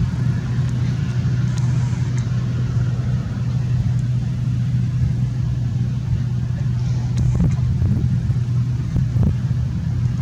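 Case IH 2388 combine's diesel engine running steadily under harvesting load, a constant low drone.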